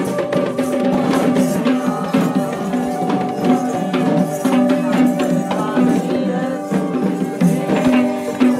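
Kandyan geta bera drums beaten in rapid patterns, with the jingling of dancers' metal ornaments, over a held pitched tone.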